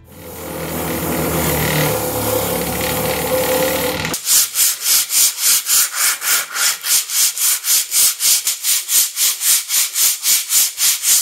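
A steady whirring for about four seconds. Then even, rhythmic scrubbing at about four strokes a second: brake shoes being brushed clean.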